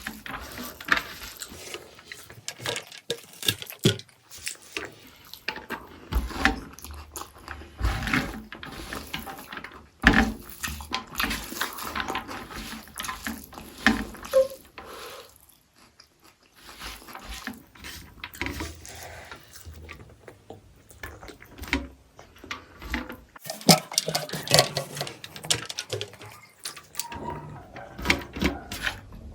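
Close-miked eating of egg curry with rice: irregular wet squishing, smacking and chewing sounds.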